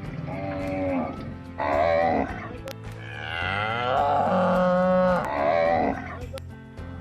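Cow mooing in several calls: two short moos, then one long, drawn-out moo that bends in pitch.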